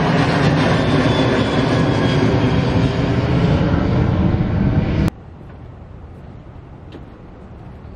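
Loud jet roar of a Batik Air Boeing 737's twin CFM56 turbofan engines at takeoff climb power as the airliner passes close overhead. It cuts off abruptly about five seconds in, leaving a much quieter steady background noise.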